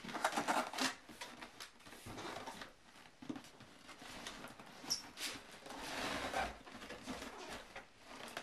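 A cardboard box being handled and turned over on carpet: irregular scraping and rustling in several bursts, loudest in the first second.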